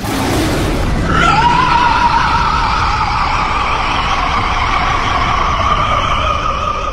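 Vasto Lorde monster roar from the English dub: after a lower, rougher start, about a second in it breaks into one long, high, screeching cry held to the end over a noisy rumble.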